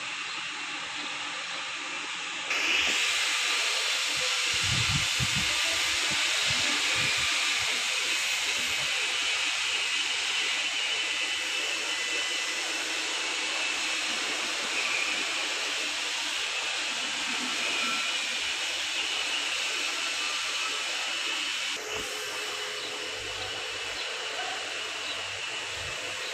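Steady hissing noise, stepping up in level about two and a half seconds in and easing down again near the end, with a few low thumps early on.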